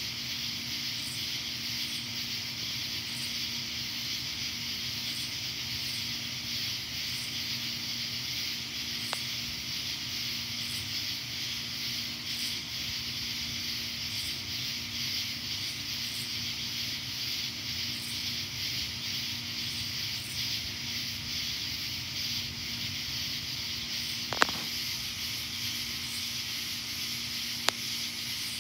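Steady high-pitched hiss with a fainter chirp about once a second, over a low steady hum. Three brief sharp clicks, the loudest about three-quarters of the way through.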